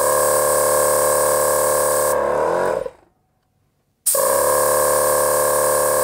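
Maxi Trac dual air compressor running while an air gun lets out a loud hiss of air. About two seconds in the hiss stops as the gun's lever is released, and the new pressure switch cuts the compressor off, its motor running down with falling pitch. After a second of quiet the compressor starts again with the gun hissing, about four seconds in.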